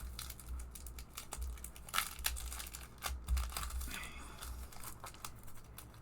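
Packaging crinkling and rustling as a planner sticker kit is unwrapped and its sheets handled: irregular short crackles throughout.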